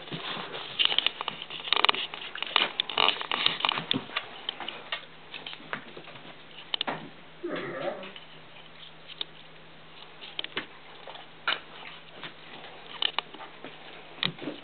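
Great Dane's claws clicking and pattering on a hard floor, dense for the first few seconds and then scattered taps. A low steady hum comes in about eight seconds in.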